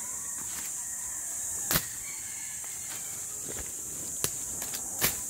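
Steady high-pitched drone of insects, with a few scattered sharp knocks and clicks; the loudest comes a little under two seconds in.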